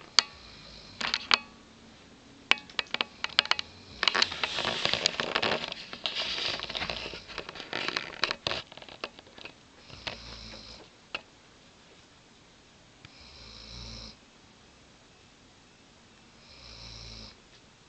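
Weimaraner dog snoring in deep sleep: three slow snores about three seconds apart in the second half. The first half is busy with rustling and sharp clicks.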